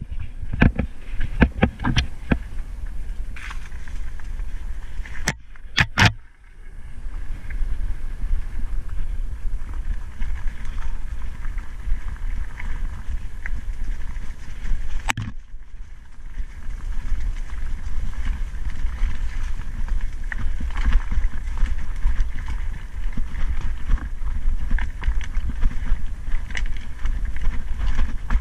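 Mountain bike being ridden over a dirt and stony singletrack, with a steady wind rumble on the camera microphone. Tyres crunch and the bike rattles over bumps, with sharp knocks in the first couple of seconds and again around six seconds in.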